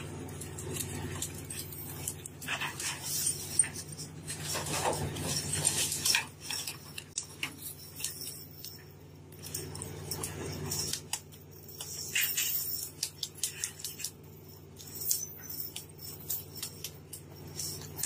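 Irregular clatter and knocking on a fishing vessel's deck over a steady low hum of ship machinery. The hum drops away about eleven seconds in, leaving mostly the scattered knocks.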